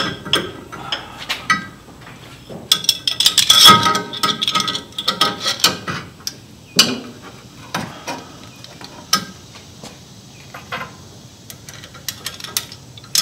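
Small metal parts of a sway bar end link (cup washers, bushings, bolt) clicking and clinking as they are handled and fitted under the truck, with a fast run of clicks about three seconds in.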